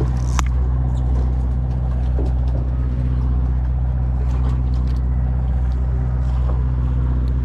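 Boat engine running steadily, an even low hum with no change in speed, with a few faint clicks and taps over it.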